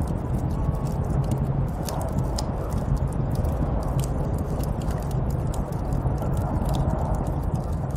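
Snowstorm wind blowing in a steady, deep rush with a low rumble, with scattered light crackles and ticks throughout.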